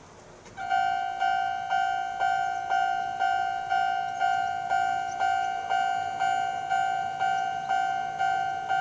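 Kintetsu railway level-crossing warning alarm ringing: a repeated ding about twice a second, each strike a clear tone that fades before the next. It starts about half a second in.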